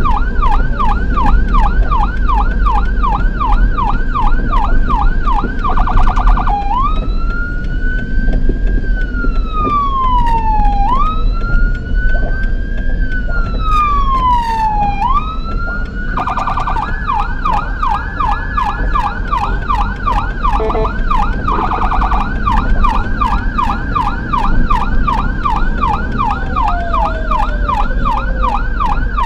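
Ambulance's electronic siren, heard loud from inside the vehicle: a fast yelp switches about six seconds in to a slow rising-and-falling wail for three sweeps, then back to the fast yelp about ten seconds later. Road and engine rumble runs underneath.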